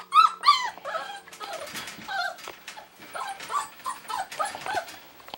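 A puppy gives two loud, high yips that fall in pitch, then a string of shorter whimpering yelps, with light scuffling and rustling as puppies play with a plush toy.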